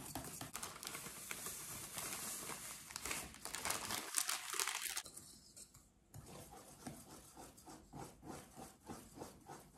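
A wire whisk stirring cake batter in a stainless steel mixing bowl, mixed with the crinkling of a plastic bag of dry cake mix as it is handled and poured in about four seconds in. In the second half the whisk strokes settle into a steady rhythm of about three a second.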